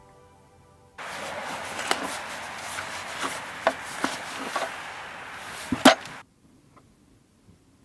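Gravel being shifted and scraped in a container: a steady gritty rustle with irregular sharp clicks and a louder knock near the end, cutting off suddenly.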